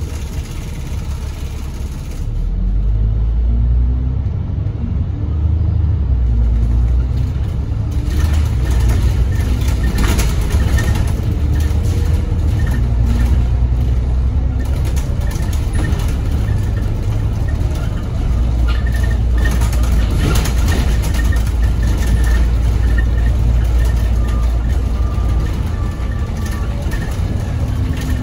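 Interior sound of a diesel double-decker bus pulling away. The engine rumble swells about two seconds in and its pitch rises as it accelerates, then it runs steadily at road speed with cabin rattles.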